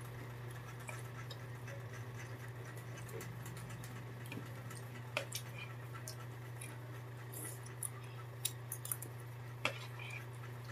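Spoons clicking now and then against plastic plates as people eat, a few light taps scattered mostly through the second half, over a steady low hum.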